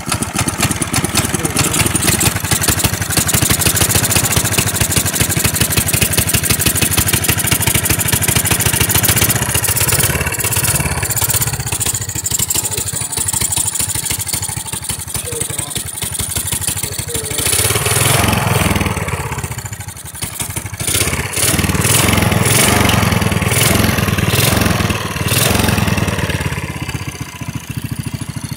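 Small go-kart engine running hard on choke with the throttle held open, its pitch rising and falling several times in the second half as the revs change.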